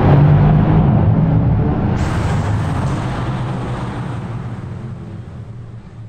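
Sports car engine passing close, then fading steadily as the car drives off down the tunnel, its low engine note echoing off the tunnel walls.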